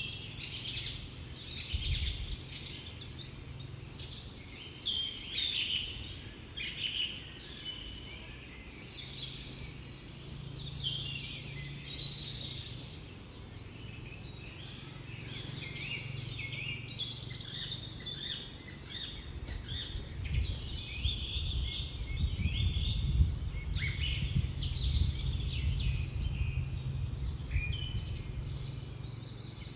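Many small birds chirping and singing in overlapping quick trills and chirps, over a steady low rumble that grows louder in the second half.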